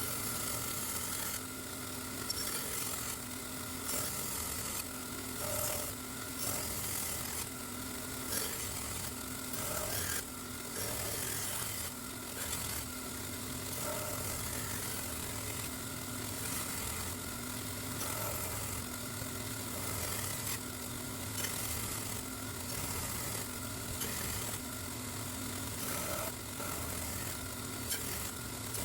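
Repeated abrasive rubbing strokes on a steel knife blade, coming evenly one after another over a faint steady hum.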